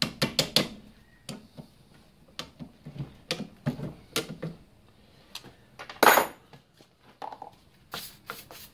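Metal hand tools clicking and clinking against a cast-iron brake caliper held in a vise as its clips and pins are worked out. A quick run of clicks comes at the start and one louder clatter about six seconds in.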